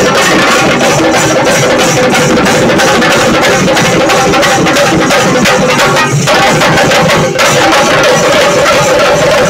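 A group of Kerala chenda drums played together with sticks in a loud, dense, fast beat. There is a brief dip about six seconds in and a momentary break about seven seconds in.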